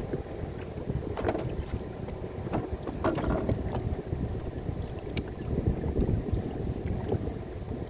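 Wind buffeting the microphone in gusts, a rough low rumble, with a couple of brief knocks about a second and three seconds in.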